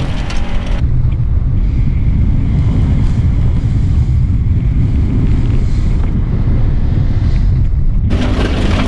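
Low, steady rumble of a 2005 Subaru WRX on a rallycross run, mixed with wind buffeting the microphone. It turns muffled about a second in and clears again near the end.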